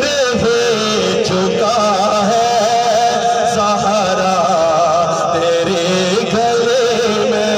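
A man's voice singing a manqabat, an Urdu devotional praise poem, into a microphone, in a long ornamented line that wavers up and down in pitch.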